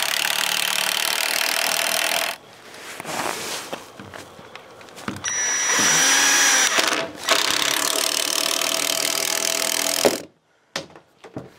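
Cordless impact driver driving 3-inch screws through a pine bench board into a support cleat: a first run of about two seconds, then a longer run of about five seconds with the motor pitch wavering, stopping suddenly near the end.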